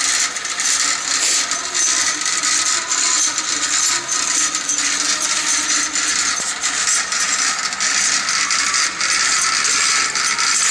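Milling machine running with its automatic power feed engaged: a steady metallic rattling and jingling, full of fine rapid clicks.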